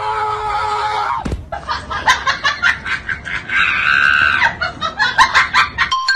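A person yells, then laughs hard in rapid repeated bursts.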